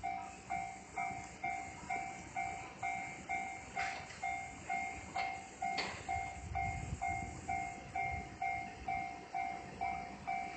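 Japanese level crossing's electronic warning bell dinging steadily, about two strikes a second. A low rumble swells beneath it about six seconds in, and there are a few short clicks.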